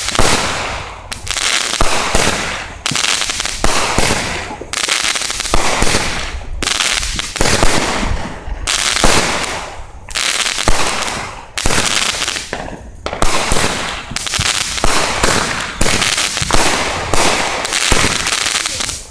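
Fireworks going off in quick succession, about one loud bang a second, each followed by a fading crackle.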